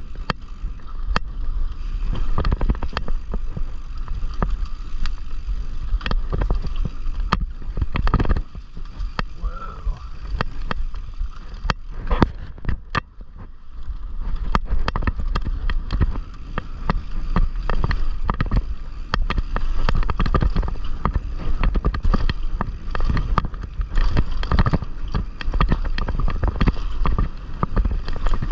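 Clatter of a loose GoPro mount on a mountain bike descending a dirt trail: constant sharp knocks and rattles over a steady low rumble of wind and tyres on dirt, easing briefly about halfway through.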